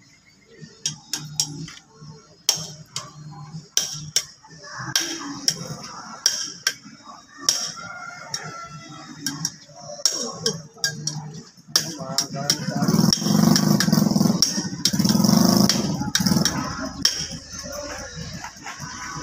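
Work crew raising a metal streetlight pole: irregular sharp knocks and clanks, with men's voices calling out, loudest about two-thirds of the way through.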